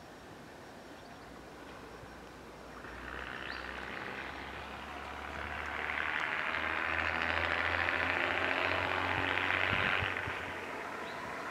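Class 108 Derby Lightweight diesel multiple unit approaching, its underfloor diesel engines running with a low steady note that grows louder as it nears, under a broad rushing noise that is loudest shortly before the unit reaches the camera and eases off near the end.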